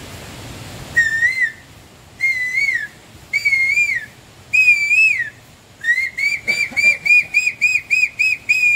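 A man whistling through his fingers to imitate an Asian koel's call. He gives four drawn-out notes, each wavering and falling away at its end and each a little higher than the last, then a fast run of short notes about three a second.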